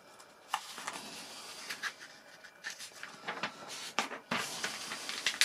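Paper instruction manual rustling and crackling as its pages are bent and flipped through, a string of short crisp rustles.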